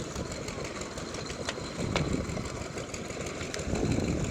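An engine running steadily at idle, a low rumble that swells twice, with a few sharp clicks about one and a half to two seconds in.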